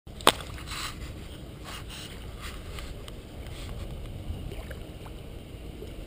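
Riverbank ambience: a steady low rumble of wind on the microphone and river water lapping at the bank. A sharp click just after the start, with a few faint soft brushing sounds over the next few seconds.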